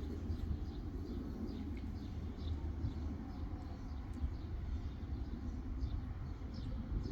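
Small birds chirping, short high notes repeated a few times a second, over a steady low outdoor rumble.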